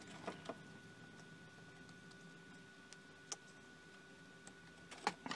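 Faint, scattered clicks and ticks of a small circuit board with a DB25 connector being handled and turned in the fingers, a few sharper clicks standing out over low room hiss.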